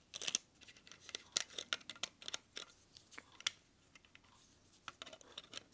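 Faint plastic clicks and scrapes of a Transformers Soundwave toy being handled as its chest tape door is opened and the Buzzsaw cassette is fitted. A quick run of small clicks fills the first three and a half seconds, and a few more come near the end.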